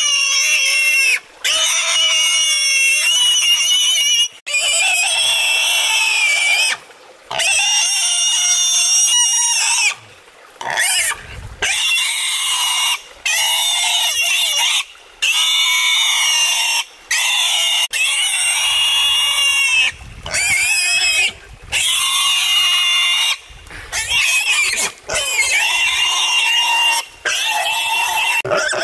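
Small black pig giving loud, high-pitched distress squeals as it is caught and held by a hind leg. The squeals come in long cries of a second or two, each broken by a brief breath.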